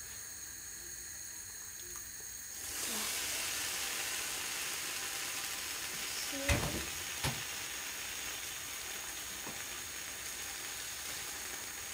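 An egg frying in a pan, with a steady sizzle that grows louder about three seconds in. Two short knocks sound near the middle.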